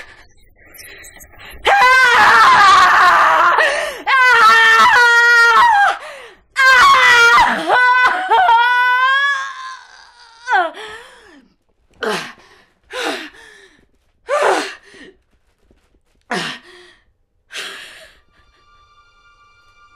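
A woman screaming: three long, loud, wavering screams, followed by about half a dozen short cries that fall in pitch.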